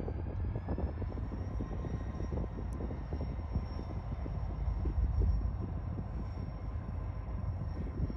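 Diesel locomotive running with a steady low rumble, a crackly rough texture over it, and a thin high whine that rises slightly about a second in.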